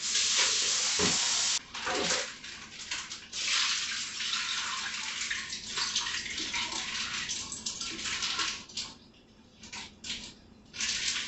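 Kitchen faucet running into a stainless steel sink while raw chicken thighs are rinsed under it; the stream splashes and breaks up as the pieces are moved about in it. The water comes and goes in stretches, eases off about nine seconds in and surges again near the end.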